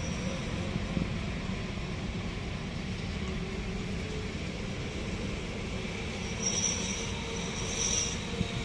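Freight train of container wagons rolling past, a steady low rumble of wheels on the rails, with two brief high wheel squeals near the end.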